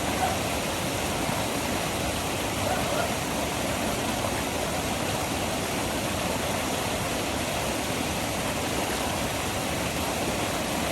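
Steady roar of a waterfall running high after heavy rain: a dense, even rush of falling water with no breaks.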